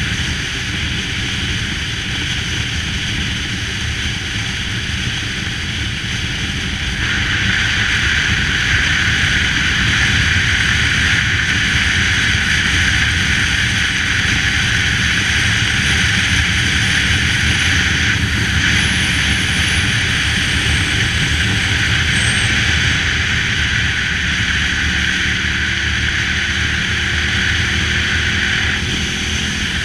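Cruiser motorcycle engine running steadily at road speed, with a rushing hiss over it that grows louder about seven seconds in and eases near the end.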